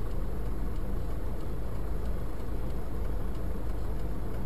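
Steady car cabin noise from a car idling while stopped, heard from inside the car.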